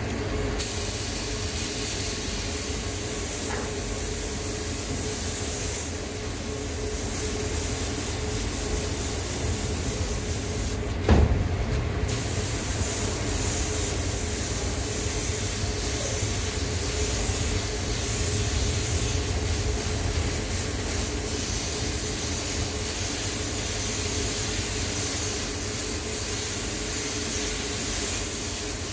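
Anest Iwata LPH-80 gravity-feed spray gun hissing steadily as it lays clear coat over base coat. The spray stops for about a second around eleven seconds in, marked by a sharp knock. A steady low hum of booth ventilation runs underneath.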